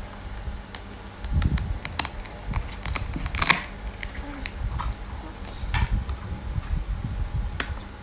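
Plastic toy knife clicking and scraping against a velcro-joined toy apple and a plastic cutting board in scattered small taps, with one louder scrape about three and a half seconds in.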